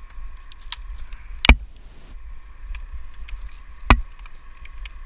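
Tree climber's gear and branches moving: light clicks and rattles, with two sharp knocks about a second and a half and four seconds in, over a steady low rumble and a faint steady whine.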